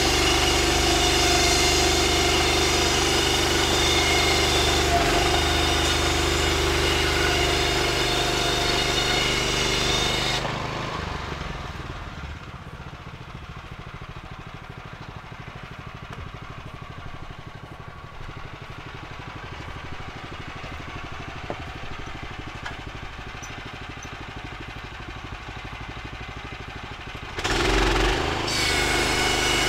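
Small petrol engine of a Woodland Mills HM126 band sawmill running at high speed, dropping suddenly to a much quieter low idle about ten seconds in, then jumping back up to high speed near the end.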